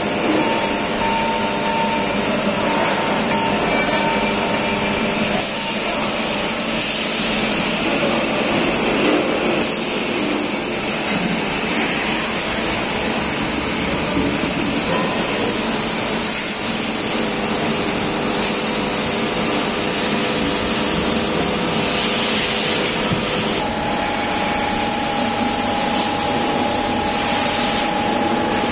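Steady, loud machinery noise in a machine shop: an even whirring hum with a strong high hiss. A faint steady whine comes in about three-quarters of the way through.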